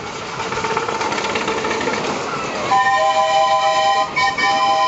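Miniature railway train passing close by: wheels clattering on the track, then just past halfway the locomotive's whistle sounds a steady chord of several notes, broken once briefly and held again.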